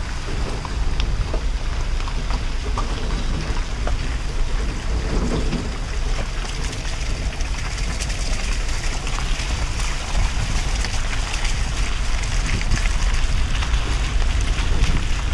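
Steady low rumble of road and wind noise inside a car moving over a wet, muddy, rubble-strewn road, with a hiss and many small scattered ticks over it.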